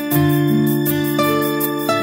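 Background music: sustained chords over a light, steady beat.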